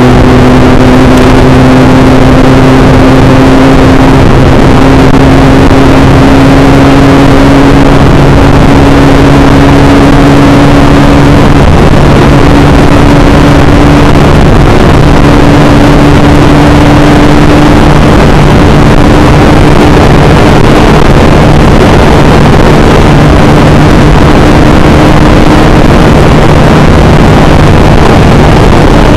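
Motorcycle engine running loudly and evenly at a steady speed, its pitch creeping slowly upward with no breaks in the drone.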